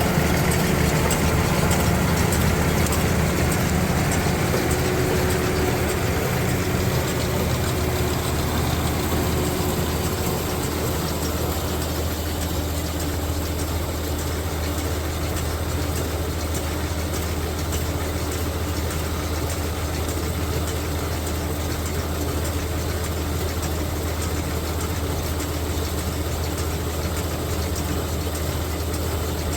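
Farm tractor engine running steadily, a little fuller in the first several seconds before settling to an even, unchanging sound.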